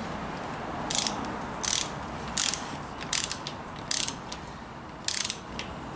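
Ratchet torque wrench being swung back and forth on a beadlock ring bolt, its pawl clicking in six short bursts, one stroke about every second, as the bolt is run down.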